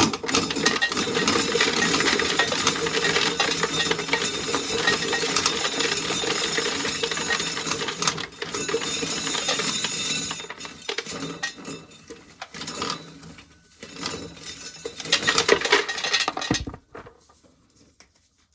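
Corn sheller working ears of corn: a loud, steady metallic clatter of the machine and rattling kernels for about ten seconds, then shorter bursts, stopping near the end.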